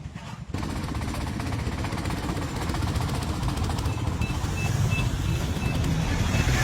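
A truck engine running, loud and steady with a low rumble, stepping up suddenly about half a second in. Partway through comes a run of short, high beeps.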